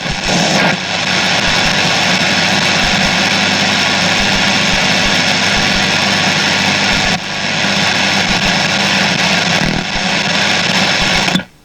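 Shortwave radio receiver giving a loud, steady rush of static with a low buzz, the noise heard between stations while tuning. It dips briefly twice and cuts off suddenly just before the end.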